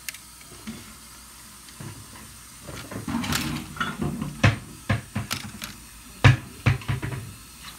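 Plastic toy trike being handled and knocked against a wooden floor: a quiet stretch, then a run of sharp knocks and clicks with some scraping, the loudest knock a little after six seconds in.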